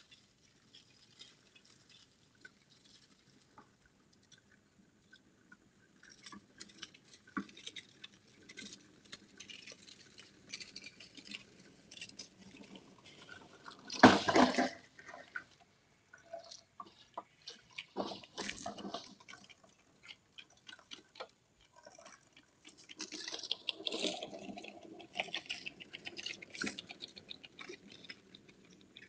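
Agri-Fab push lawn sweeper rolling over leaf-strewn grass, its brushes and wheels giving off an irregular clicking rattle that starts a few seconds in and is loudest about halfway through as it passes close. Heard faintly through a security camera's microphone.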